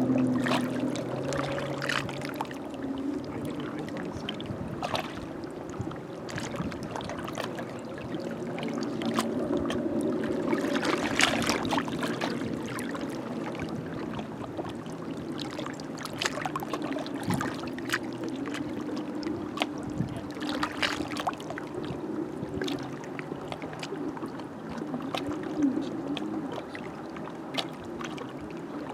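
Small lake waves lapping and splashing irregularly against the shore. A low motor hum, likely from a boat, fades out over the first few seconds.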